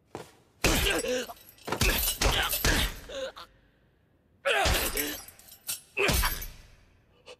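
A series of heavy kicks and blows landing on a body, about five of them, each a sudden thud. There is a longer gap near the middle. Each blow is followed by a young man's pained grunts and groans.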